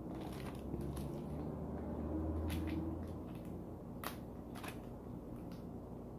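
Close-up eating sounds: chewing and lip smacks with scattered sharp little clicks as a person eats chicken with her fingers. A low steady hum runs through the first three seconds.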